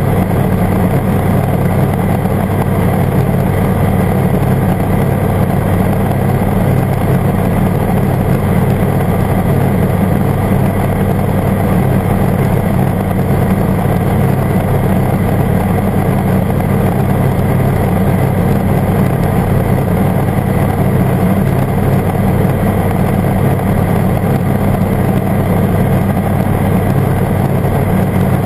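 Airbike ultralight's engine and propeller running steadily in level flight, a constant drone with no change in speed.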